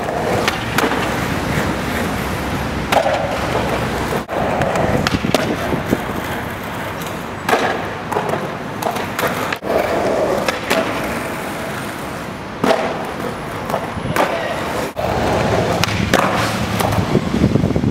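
Skateboard wheels rolling on concrete, with repeated sharp clacks of the board popping and landing.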